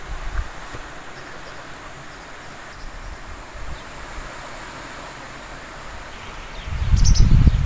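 Strong wind blowing through trees with a steady rustle of leaves. About a second before the end a heavy gust hits the microphone with a low rumble, and a few faint high chirps come through.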